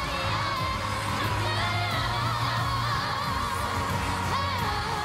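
Children's choir singing a pop song, with long held notes that waver in pitch, over a backing track with a steady bass.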